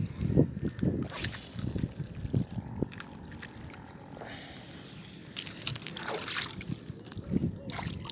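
Irregular bumps and rustles from the camera being handled, with water sloshing and splashing close by.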